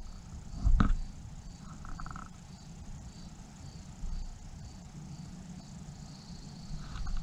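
Quiet open-air ambience with a low rumble, a short rustle or bump about a second in, and a faint high chirp repeating every half second or so.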